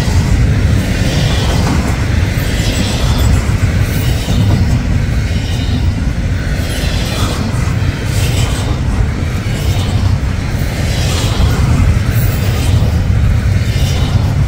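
Double-stack intermodal freight train rolling past close by: a loud, steady rumble of wheels on the rails, with a higher hiss that swells and fades every second or two.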